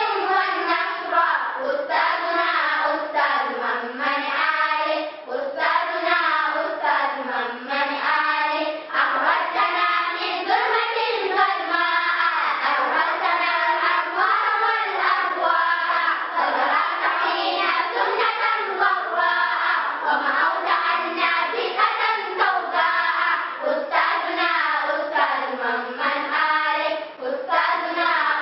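A choir of schoolgirls singing an Islamic song together, continuously throughout.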